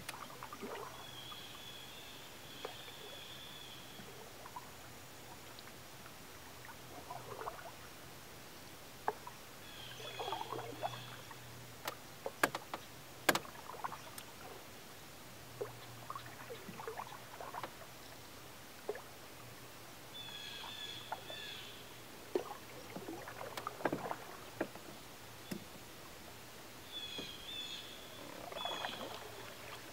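Canoe paddle strokes on calm water: a swish of the paddle through the water every several seconds, with a few sharp clicks near the middle. A bird calls several times in the distance.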